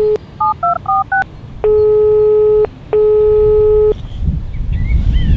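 Telephone tones: a dial tone cutting off, four quick touch-tone keypad beeps, then two long ringing tones of about a second each. About four seconds in, a lawn sprinkler's water spray starts hissing, with a bird chirping near the end.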